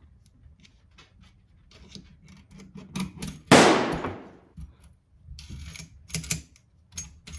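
Light clicks and scrapes of a plastic trim tool prying at the parts of a Springfield 1911-A1 pistol, with one loud sharp snap about three and a half seconds in that rings and fades over about a second, then a few more clicks near the end.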